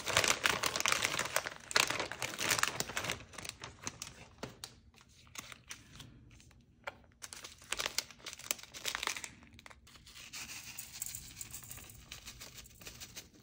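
Plastic food packaging crinkling and rustling as the pouches and sauce and seasoning sachets of a fried-tofu sushi kit are handled and torn open. It is loudest in the first three seconds, then comes and goes.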